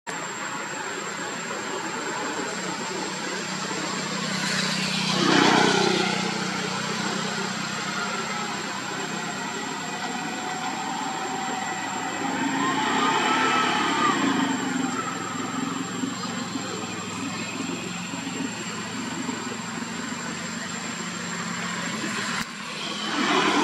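Steady background of motor traffic, engines running with a low hum, swelling louder about five seconds in and again near the end. A slow rising-then-falling whine comes around the middle, and a thin high steady tone runs underneath.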